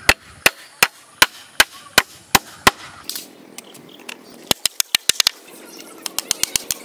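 A metal-headed hammer striking a bamboo pole at a frame joint, eight even blows a little under three a second. After a cut, quicker runs of sharp taps follow.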